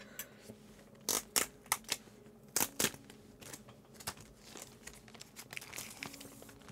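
Clear plastic packaging crinkling and tearing as it is peeled open from a paper-wrapped box, in about six short, sharp crackles during the first three seconds, then fainter rustling as the package is handled.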